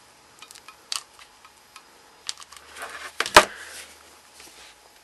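A hot glue gun and a fur scrap being handled over a cutting mat: scattered light clicks and some rustling, with one sharp knock a little past three seconds in as the glue gun is set down on the mat.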